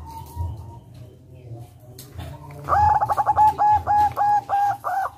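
Zebra dove (local perkutut) singing a quick run of about nine short coos, about four a second, starting a little over halfway through.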